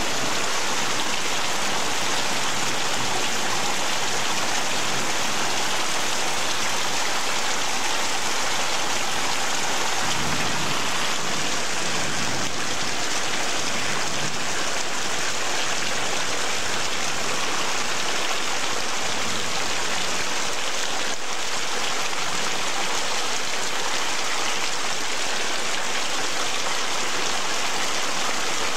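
Heavy rain pouring steadily onto pavement and trees, a dense, even hiss of drops.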